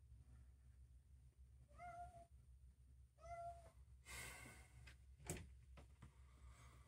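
Domestic cat meowing twice, two short, faint meows about two and three seconds in, followed by a brief scuffling noise and a single click.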